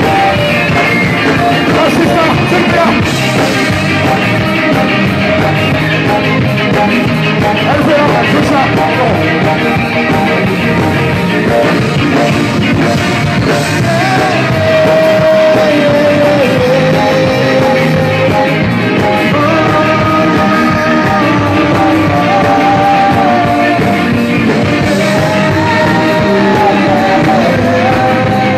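Live rock band playing loudly, with electric guitars, drums and a singer, amplified through a PA.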